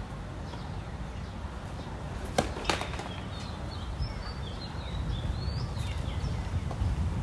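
Two sharp knocks of a tennis ball about a third of a second apart, over a steady low outdoor rumble, followed by a few faint bird chirps.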